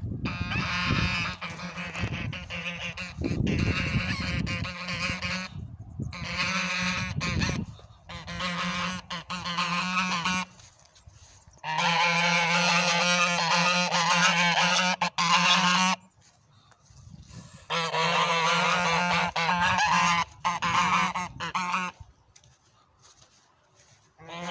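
A pair of white domestic waterfowl calling loudly, in about five long runs of repeated calls with short pauses between them.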